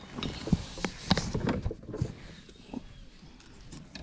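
Clattering knocks and rattles of a landed peacock bass being handled on a metal lip grip in a plastic kayak while the lure is worked loose with pliers. The knocks are busiest in the first two seconds, then give way to a few faint clicks.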